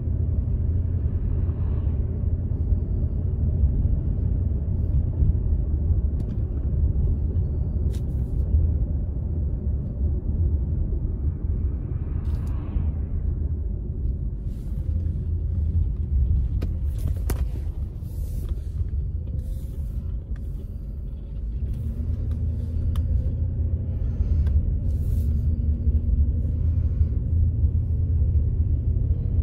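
Steady low rumble of a car's engine and tyres heard from inside the cabin while driving, with two brief swells of hiss early and about twelve seconds in, and faint scattered clicks in the second half.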